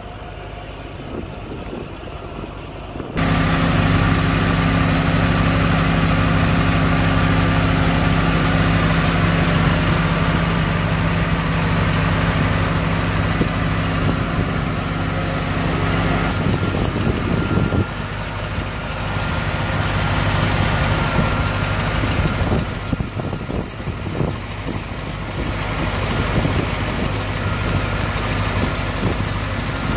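A 1989 Chevrolet Corvette C4's 5.7-litre L98 Tuned Port Injection V8 idling steadily, heard at the open engine bay, with a thin high whine over the low hum. It gets suddenly louder about three seconds in.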